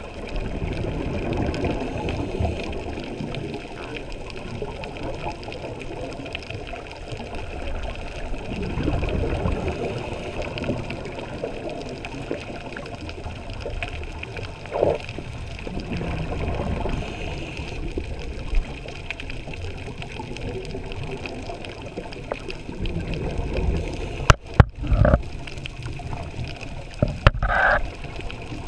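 Muffled underwater gurgling and bubbling heard through a camera housing, swelling and easing every few seconds like a scuba diver's regulator exhalations. A few sharp knocks near the end are the loudest sounds.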